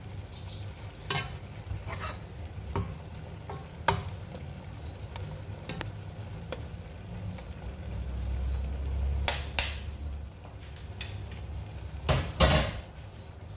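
A metal spoon knocking and scraping against the side of an aluminium pot at irregular intervals, over a soft steady sizzle of fish pieces cooking inside; two louder clatters come near the end.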